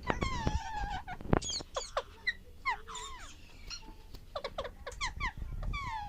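Alexandrine parakeet calling: a rapid series of short, squeaky, sharply falling chirps and squawks, one after another.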